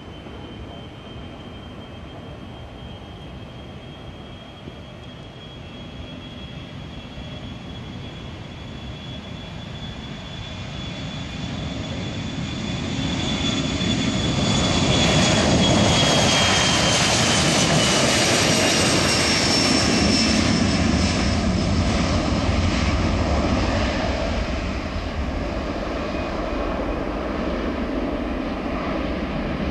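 Boeing 737-300 CFM56-3 turbofans at takeoff power as the jet rolls down the runway and lifts off. A high fan whine rises slowly in pitch, then drops as the aircraft passes over the jet rush. The sound builds to its loudest about halfway through and eases slightly as it climbs away.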